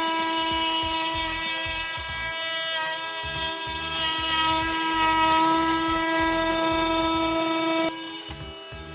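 A power tool running at one steady high pitch, with an uneven low rumble from the work underneath. It drops suddenly in level near the end.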